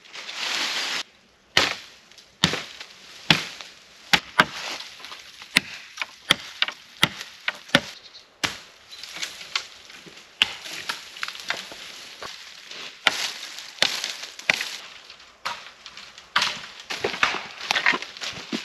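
Wood being chopped: a series of sharp, irregular knocks and cracks, coming closer together near the end, with rustling between the strikes.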